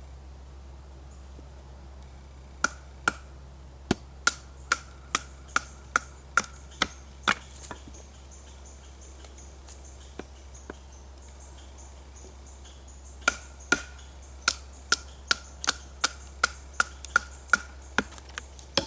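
Batoning a knife to split small sticks into kindling: a baton striking the back of the blade in two runs of sharp knocks, about two to three a second, each with a brief ringing note, separated by a pause of several seconds.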